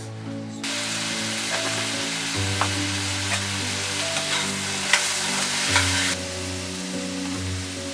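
Food sizzling as it fries in a pan, with scattered crackles, starting abruptly under a second in and stopping about six seconds in. Soft background music with sustained chords plays underneath.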